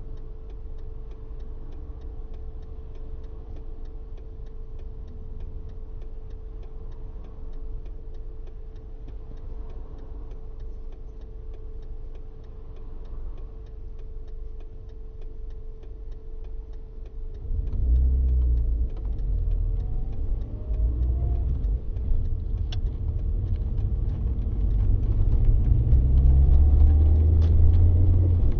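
Car engine idling, heard from inside the cabin, with a steady thin whine and faint rapid ticking over it. About two thirds of the way through the car pulls away, and the engine and road rumble get louder as it gathers speed.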